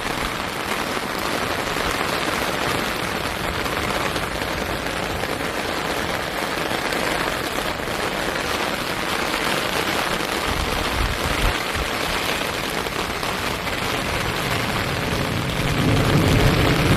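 Steady rain falling, an even hiss of drops on leaves and surfaces, with a low rumble about ten seconds in and again near the end.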